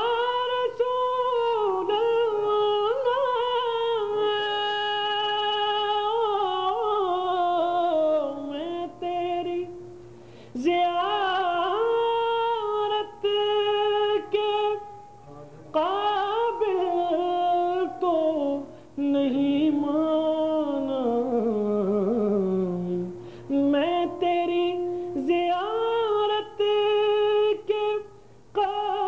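A man singing a naat, an Urdu devotional song, in long held and gliding notes with ornamented turns, breaking off briefly for breath every few seconds. Past the middle, one phrase slides down low before he climbs again.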